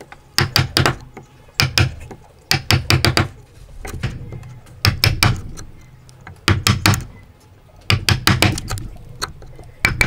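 Hammer tapping a chisel into a block of pale wood to chop out a joint notch. The sound comes in short runs of three to six sharp knocks, with a brief pause between runs.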